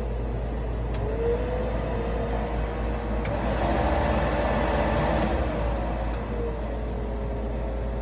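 Car heater blower motor spinning up and running with a steady whine, which climbs and gets louder for a couple of seconds around the middle, as if switched to a higher speed, then settles back.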